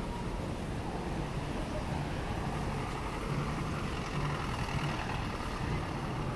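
Steady road traffic noise, with vehicles passing at a city intersection.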